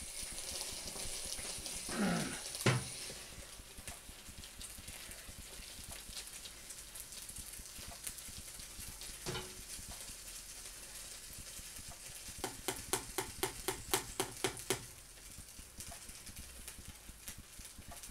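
Express Chef electric calzone cooker hissing as the dough finishes cooking, the hiss that signals it is done; the hiss fades after about three seconds. Later a single knock, then a quick run of about ten clicks, about four a second, as a knife works the calzone loose on the cooker's plate.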